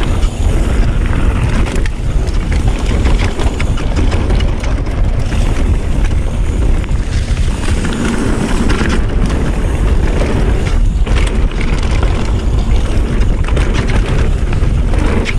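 Mountain bike riding fast down a dirt singletrack: wind rushing over the camera microphone, with tyre noise and the bike's clatter and small knocks over the rough trail.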